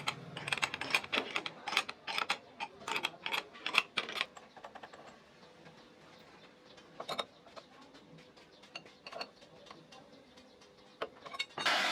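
Quick, irregular clicks like keys being typed on a keyboard, thinning out after about four seconds to a few single clicks. Right at the end a CNC router's spindle starts up with a steady whine.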